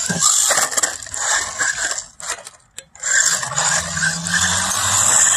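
Small 1/16-scale RC truck running fast over rough asphalt, a steady hiss of tyres and drivetrain. A few sharp clacks of the truck hitting the ground come about two and a half seconds in, then a brief lull before it runs again.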